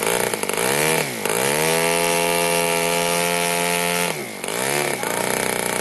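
Forster .88 Super C single-cylinder two-stroke spark-ignition model aircraft engine running on a test stand, turning a 16x7 propeller with a steady buzzing note. Twice, about a second in and again about four seconds in, the revs sag and then pick back up.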